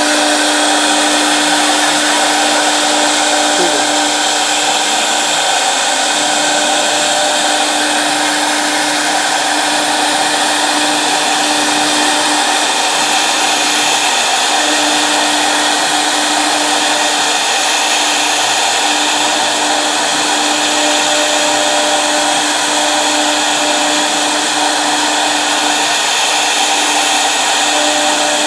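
The spindle of a 1325 CNC router running steadily: a constant whine over a loud, even hiss. The whine drops out briefly a few times.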